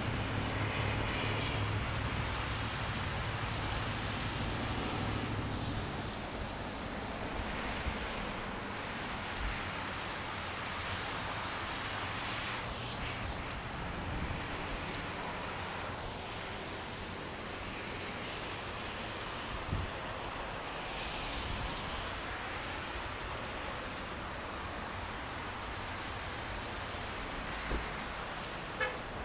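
Steady heavy rain falling, with a low rumble in the first several seconds and a few faint thumps scattered through it.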